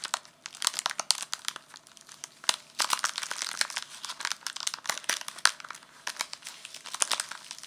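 Crinkly gift wrapping being handled and crumpled, an irregular run of sharp crackles in bursts with short quieter gaps.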